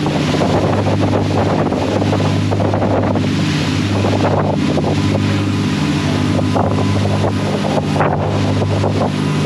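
A 31 Bertram sportfishing boat's inboard engines running at cruising speed with a steady drone, under the hiss of spray and wake and wind buffeting the microphone.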